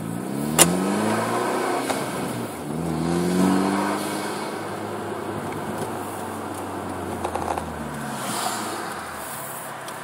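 2013 Hyundai Veloster Turbo's turbocharged four-cylinder with a Magnaflow 12886 exhaust, heard through the open driver's window as the car pulls away: the engine note rises in pitch twice as it accelerates through the gears, then settles and drops off later. A single sharp click about half a second in.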